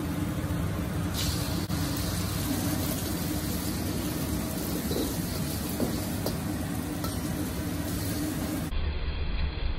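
Steady rush of a gas wok burner under a carbon-steel wok. About a second in, two eggs hit the hot oil and sizzle, with a few clicks of the metal ladle scraping the wok.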